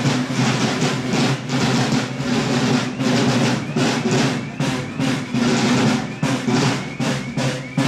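Marching drums, snare and bass drum, beating a steady march rhythm.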